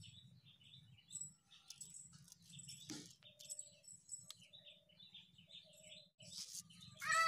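Small birds chirping in short repeated notes over a faint low hum, with a couple of soft clicks; near the end a louder falling call.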